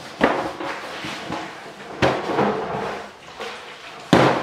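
Lumps of bread dough being slapped down and worked on a stainless-steel worktable: three sharp smacks about two seconds apart, with softer knocks in between.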